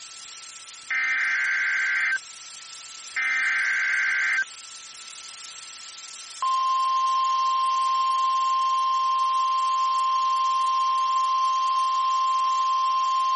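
NOAA Weather Radio alert opening: two buzzy bursts of SAME digital header data, each about a second long, which encode the severe thunderstorm warning for weather-alert receivers. Then, about six seconds in, the steady single-pitch 1050 Hz warning alarm tone starts and holds.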